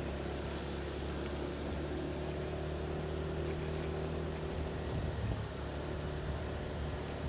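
Motorcycle engine running steadily while riding, with a steady hiss from the tyres on the wet road. The engine note wavers briefly about five seconds in.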